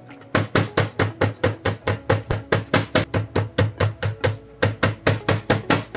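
Metal meat-tenderizer mallet beating a whole raw fish on a wooden chopping board in rapid, even blows, about five a second, starting a moment in. The pounding softens the fish's flesh.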